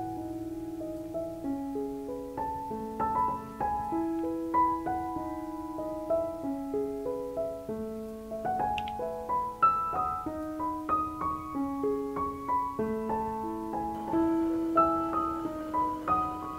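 Background piano music: a melody of single notes moving over held lower notes.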